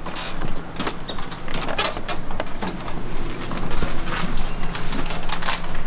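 Kitchen handling noise: irregular clicks, knocks and clatter of cookware and packaging being handled while rice is set up, over a steady low hum.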